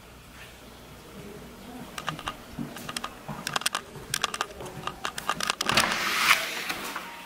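A run of sharp, irregular clicks and taps from someone walking along a tiled hallway and handling a door. About five and a half seconds in, a brief rushing noise follows as the door is opened.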